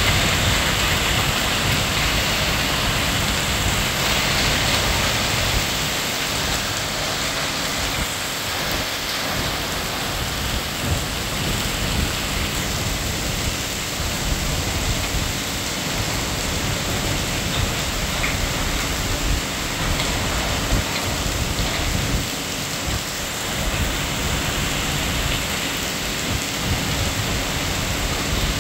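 Hail mixed with heavy rain pelting a road, a steady dense hiss of falling ice and drops with a few louder hits here and there.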